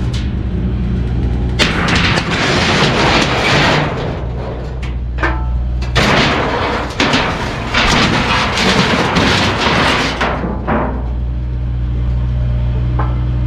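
Kubota U55-4 mini excavator's diesel engine running steadily while its bucket dumps and drags loads of junk and debris into a dumpster. Two long stretches of crashing and rattling, with heavy thuds, about two seconds in and again from about six to ten seconds.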